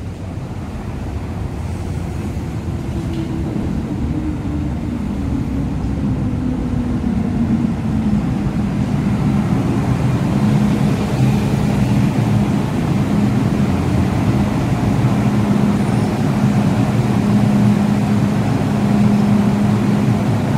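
MTR M-train electric multiple unit pulling into the station with a steady rumble that grows louder. Its motor whine falls in pitch as it brakes, then settles into a steady hum once the train is nearly stopped.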